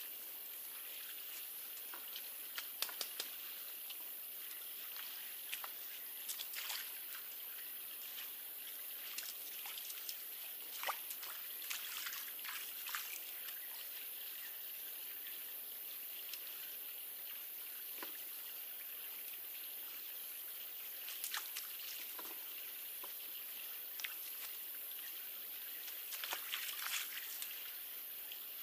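Water trickling and sloshing in small, scattered splashes a few seconds apart, over a steady faint high hiss.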